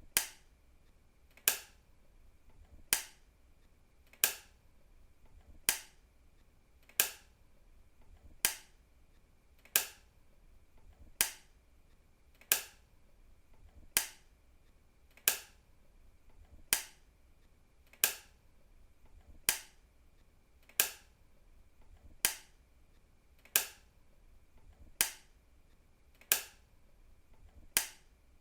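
A switch clicking on and off: single sharp clicks, evenly spaced about one every second and a half.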